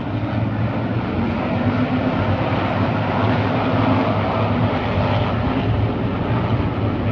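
Racing motorcycle engines running on the track, a steady loud drone with a low hum that rises and falls slightly.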